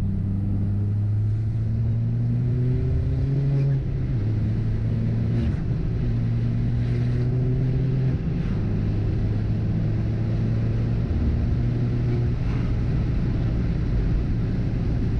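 Ford Fiesta ST's turbocharged engine pulling under part throttle while driving. Its pitch climbs, then drops at each gear change, about four times. It is held to part throttle because flooring it sets off a misfire.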